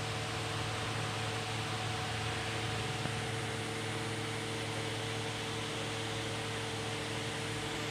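Electric ventilation fan running steadily: an even hiss with a constant low hum underneath.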